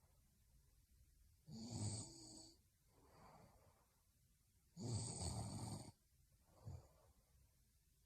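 A sleeping woman snoring: two snores about three seconds apart, each followed by a softer breath.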